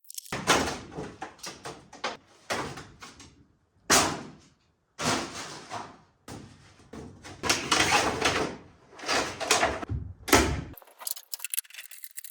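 A run of irregular knocks, bangs and scraping from hands-on building work, broken into short bits with abrupt stops and brief silent gaps.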